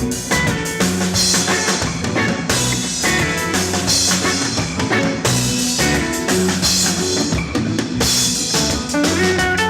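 A band playing: a drum kit with kick, snare and a cymbal wash about every second and a half, under bass and electric guitar notes.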